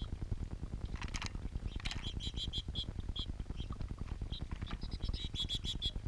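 Fountain water bubbling and splashing close to the microphone, a steady rapid low patter, with two sharper splashes from a bathing bird about one and two seconds in. From about two seconds in, small birds give quick runs of short high chirps.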